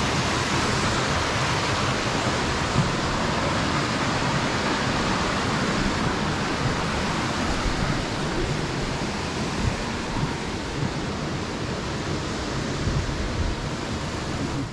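Brook water rushing steadily over rocks under a footbridge.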